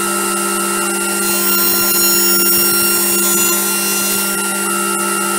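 Stepper-motor-driven CNC milling machine running a circular saw blade: a steady machine whine made of several held tones. A higher whistling layer swells in about a second in and fades out just before the end.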